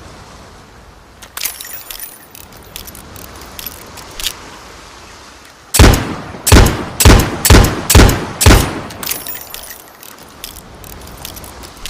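Webley Mark VI revolver: a run of light metallic clicks and rattles from the gun's mechanism, then six loud shots in quick succession about half a second apart, then more metallic clicks.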